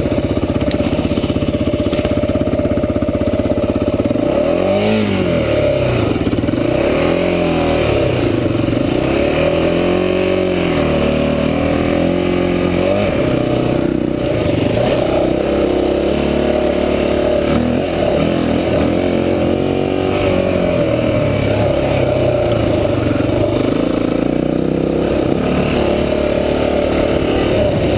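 Honda XR400 dirt bike's single-cylinder four-stroke engine under way, revving up and easing off several times as the throttle is worked, then running at a steadier pace.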